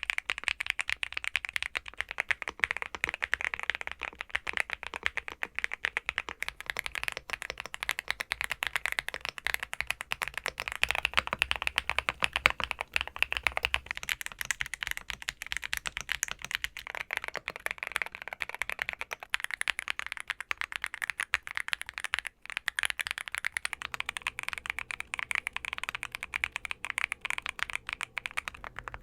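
Continuous fast typing on a mechanical keyboard fitted with Cerakey Ceramic V2 ceramic keycaps: a dense run of key clicks and clacks with no pauses longer than a moment.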